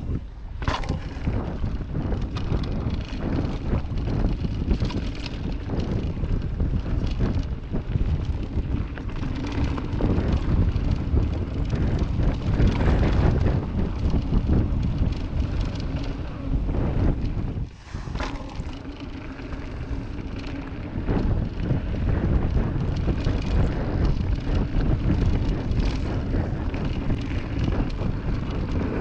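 Wind buffeting the microphone over the rumble of a mountain bike's tyres on a dirt trail during a fast descent. Frequent short knocks and rattles come from the bike bouncing over bumps.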